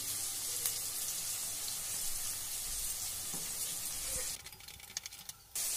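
Chopped onions sizzling in hot oil in a steel kadai while a perforated slotted spoon stirs them. The sizzle drops away for about a second near the end, then comes back.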